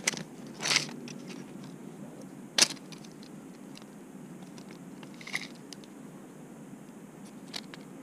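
Handling noise of a steel tape measure being pulled out and laid against a wooden bow limb: a short rasp about a second in, a sharp click a couple of seconds later, then a few lighter clicks.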